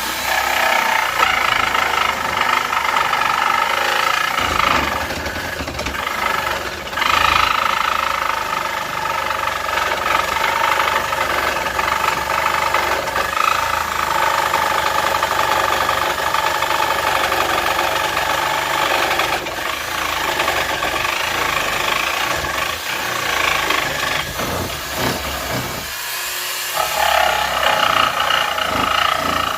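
Electric jigsaw cutting through a white oak board, its motor and reciprocating blade running steadily, with a few brief dips and a short lull near the end.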